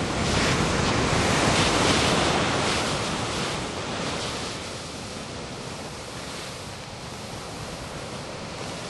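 Ocean surf breaking and washing in as a steady rush, swelling over the first couple of seconds and then easing off.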